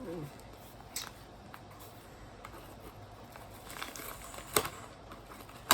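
Handling a parcel by hand: scattered rustles of packaging and light taps, with a sharp click near the end.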